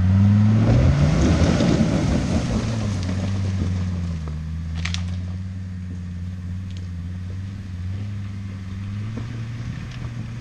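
Land Rover Defender Td5's five-cylinder turbodiesel engine pulling the vehicle up a rocky forest track, loudest and roughest for the first two seconds, then a steady engine note that slowly fades as it climbs away. A single sharp click about five seconds in.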